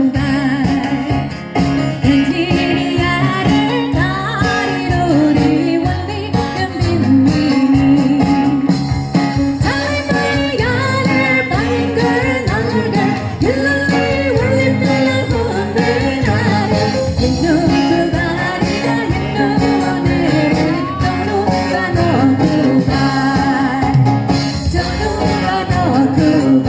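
An Indian song: a sung melody over instrumental backing, with a steady low drone held underneath.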